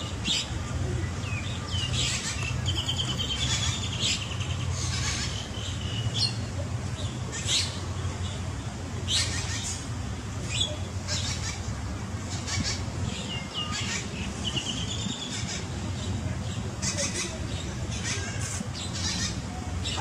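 Birds calling: many short, high chirps and squawks scattered throughout, with a few quick trills, over a steady low hum.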